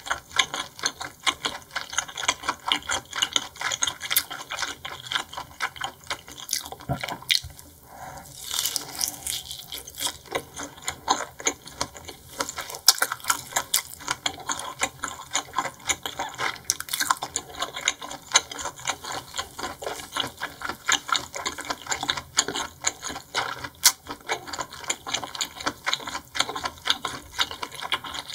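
Close-miked chewing and wet mouth sounds of someone eating seafood: a dense, irregular run of small smacking clicks, several a second, easing briefly about seven seconds in.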